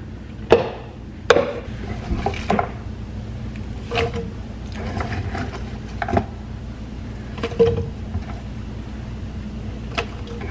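Chunks of celery, carrot, onion and garlic dropped by hand into a large nonstick soup pot, giving a scattered run of short knocks and thuds about once a second.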